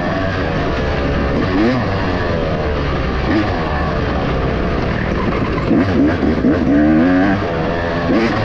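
Off-road racing engine revving up and down over and over, its pitch rising and falling every second or so as the rider works the throttle, over a steady rush of noise.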